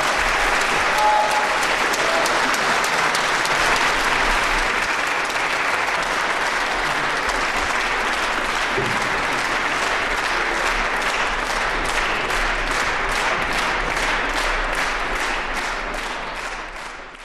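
Audience applauding steadily; in the last few seconds the clapping thins so that single claps stand out, then it fades out.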